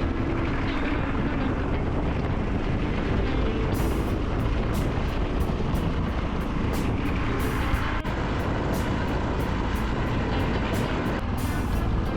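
Yamaha XT660Z Ténéré motorcycle under way, its single-cylinder engine running steadily with a continuous rushing noise and brief irregular hisses.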